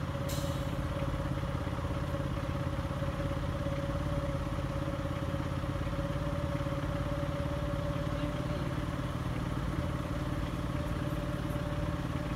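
An engine idling steadily: a low hum with a constant mid-pitched tone held over it, and one brief click just after the start.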